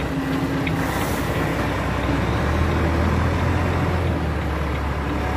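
Container truck's diesel engine running while the rig reverses slowly, its low hum growing stronger about two and a half seconds in. A short hiss comes about a second in.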